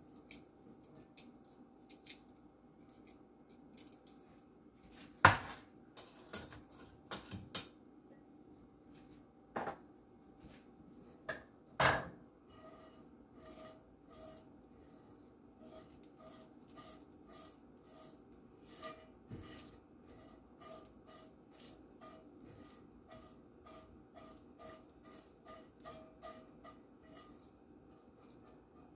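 Metal tongs knocking and scraping against a cast iron skillet, with two sharp clanks about 5 and 12 seconds in. Then a silicone basting brush is swept back and forth across the skillet, a steady run of light strokes about two a second.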